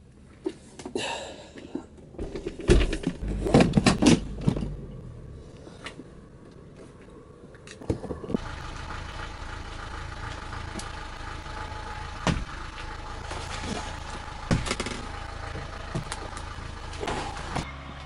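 Music gear being loaded into the back of a van: knocks, thumps and clatter of cases and stands, loudest a few seconds in. From about eight seconds a steady mechanical hum runs underneath, broken by occasional single knocks.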